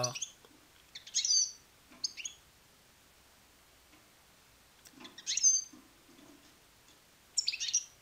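Small cage finch giving short, high chirps, four times with gaps between them.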